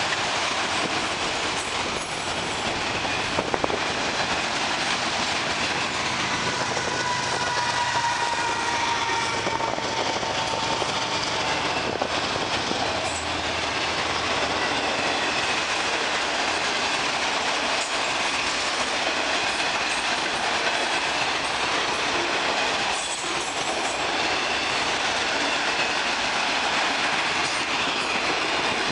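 Freight train of enclosed autorack cars rolling past steadily, steel wheels running on the rails. A faint high wheel squeal comes and goes for several seconds around the middle.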